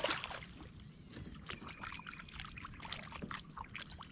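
A bass splashing into the water as it is released over the side of a boat, then a run of small splashes and drips as a hand stirs the surface. A steady high-pitched tone runs underneath.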